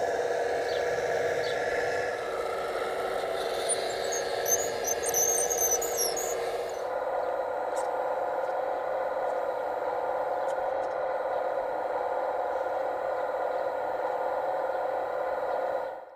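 Hydraulic pump of an RC model Case CX85RR excavator running with a steady electric whine as the boom moves a load hung on a chain.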